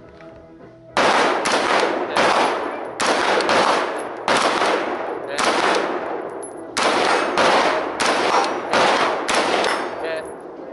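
A handgun fired in a rapid string of about a dozen shots, starting about a second in, roughly one to two shots a second, each shot followed by an echo.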